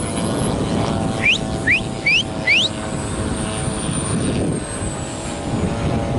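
Radio-controlled model airplanes flying overhead, with a steady engine drone and a thin high whine that rises and then falls as one passes. About a second in come four short rising chirps in quick succession.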